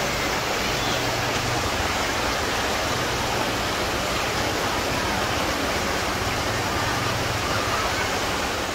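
Shallow rocky river rushing steadily over boulders and small cascades.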